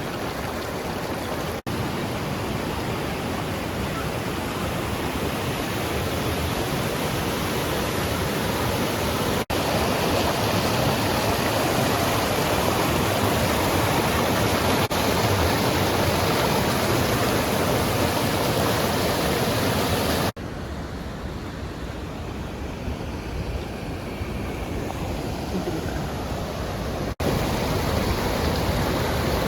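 Steady rush of a waterfall and river, an even roar of falling water. It cuts abruptly a few times, stepping louder or quieter, as shots from different spots are joined.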